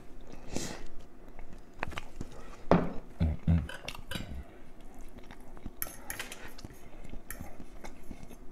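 Metal fork clinking and scraping against a plate of food, with a few dull knocks about three seconds in.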